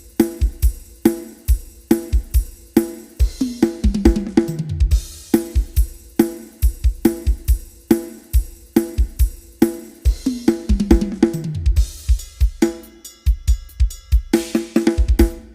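A drum kit playing a steady beat of kick, snare and hi-hat with cymbals. Twice it breaks into a fill of tom hits falling in pitch from high tom to floor tom, about four seconds in and again about ten seconds in.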